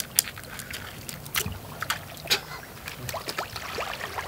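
Shallow seawater lapping and trickling around a wader in a wetsuit, with a few sharp clicks and some small plinking drips near the end.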